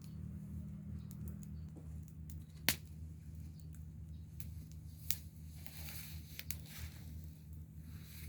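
Wood fire crackling with scattered sharp pops, the loudest about a third of the way in, over a steady low hum.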